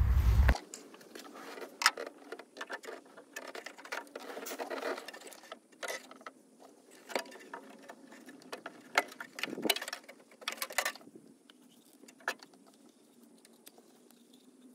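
Irregular small clicks, taps and knocks of tools and parts being handled during hand assembly work, with a few sharper knocks standing out.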